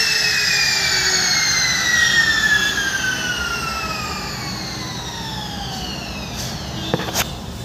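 Small electric trimmer-router switched off and spinning down: its motor whine falls steadily in pitch and fades over about six seconds. Two short knocks come near the end.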